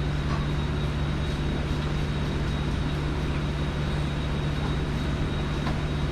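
Steady low machine drone, even in level throughout, with a few faint light clicks over it.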